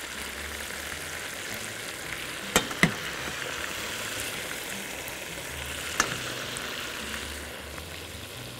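Frying pan sizzling with a steady hiss, with a few sharp clicks of metal utensils against a serving platter: two close together about two and a half seconds in, and one at about six seconds.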